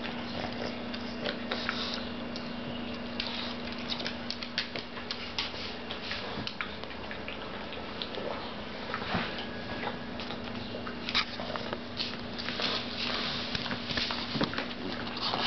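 Pug licking and chewing food off a paper plate: a run of irregular wet clicks and smacks, with the plate and newspaper underneath rustling as it noses around it.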